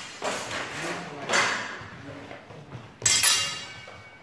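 Steel sword blades and bucklers clashing in sword-and-buckler sparring: a few sharp clanks, the loudest about three seconds in with a metallic ring, echoing in a large hall.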